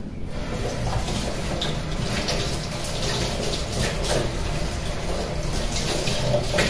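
Kitchen tap running into a stainless-steel sink, the water splashing over strawberries being rinsed by hand.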